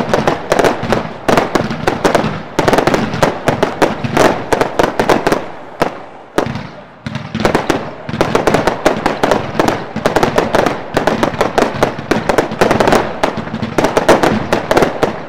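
Lesli 'King of the Jungle' 180-shot firework compound firing in rapid volleys, several shots a second bursting overhead. The volleys ease briefly about six seconds in, then pick up again.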